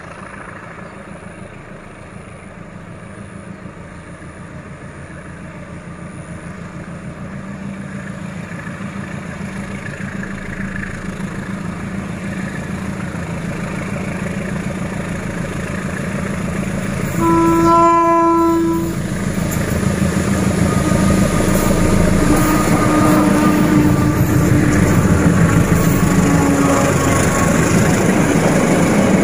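Diesel locomotive of a bulk-cement freight train approaching under full power, its engine growing steadily louder, with one horn blast of about a second and a half past the middle. The locomotive then runs close by, its engine and wheels loudest near the end.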